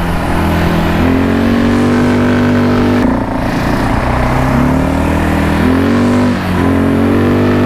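A 200 cc four-stroke ATV engine with CVT automatic transmission runs under throttle. Its pitch climbs, holds steady and drops back, three times over.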